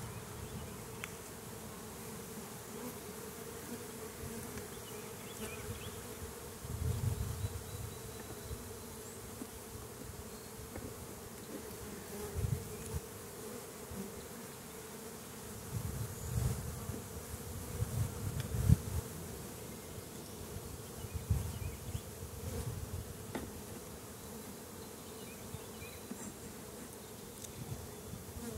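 A mass of honeybees buzzing steadily around an open hive and nuc as the colony is worked. A few low thumps come and go under the hum.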